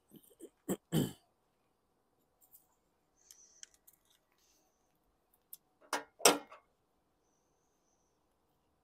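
Small metal hand tools being handled and set down on a stone bench: a couple of light clicks in the first second, faint ticks, then a brief louder clatter about six seconds in.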